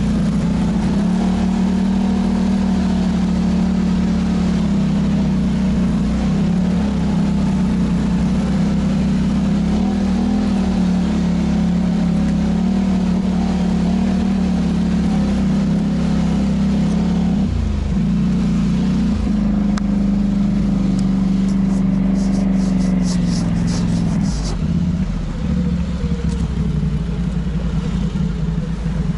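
Polaris Sportsman ATV's twin-cylinder engine running steadily under way on a dirt trail, its pitch dipping and picking up again a few times in the later part. A quick run of sharp clicks comes about two-thirds of the way in.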